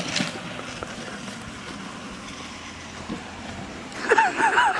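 Longboard wheels rolling on pavement, a steady rolling noise as the rider heads downhill. About four seconds in come a few short rising-and-falling calls.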